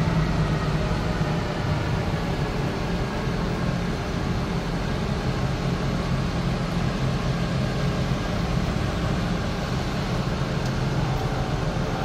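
Engine of a 10-ton diesel forklift running steadily as it drives carrying a loaded shipping container, a constant low hum with no sudden changes.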